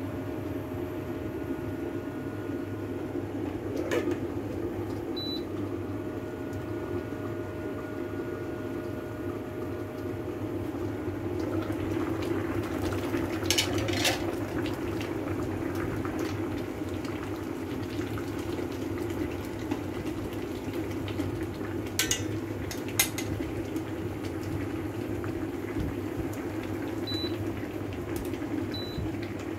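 A pot boiling on a stove, a steady bubbling and hiss, with a few short sharp clinks of pots or utensils scattered through it.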